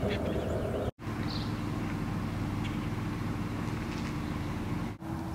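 Outdoor ambience: a steady low rumble with a faint steady hum and a few faint high chirps. The sound cuts out for an instant about a second in and dips again near the end.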